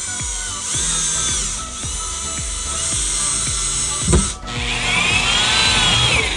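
Power drill run in three bursts, its motor whine rising and falling each time, over background music with a steady beat.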